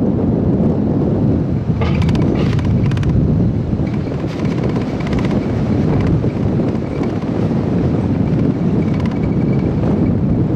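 Wind buffeting the microphone over a steady low street rumble, with a few brief rattles about two seconds in.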